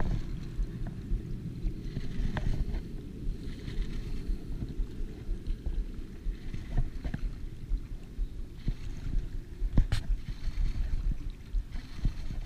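Wind rumbling on the microphone over lapping water while a baitcasting reel is cranked, with a sharp click about ten seconds in.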